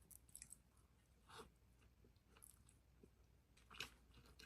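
Faint chewing and small mouth sounds of someone eating a hot dog, a few soft bites and smacks, loudest just before the end.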